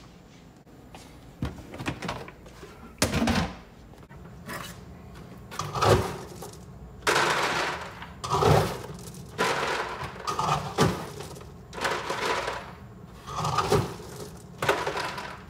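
Dry dog kibble being scooped and poured into a black plastic container, rattling against the plastic, with knocks from handling the container. It comes as a string of about a dozen short noisy bursts, the loudest about six seconds in.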